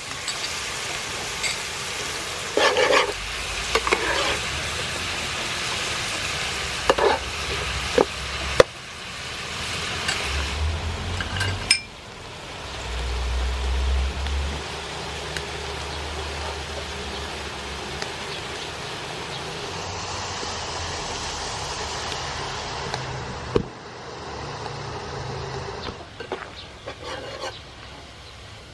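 Clam meat and green peppercorns sizzling in a hot pan while a metal spatula stirs them. The spatula scrapes and clicks against the pan, most sharply in the first several seconds.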